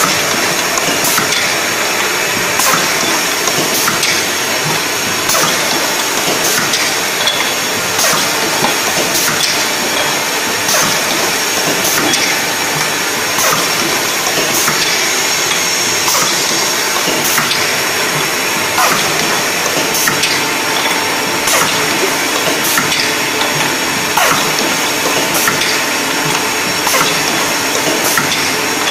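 Automatic rotary pickle filling machine running: a steady whirring hiss of motors and conveyor, with a sharp click roughly every second or so as the turret indexes glass jars through filling.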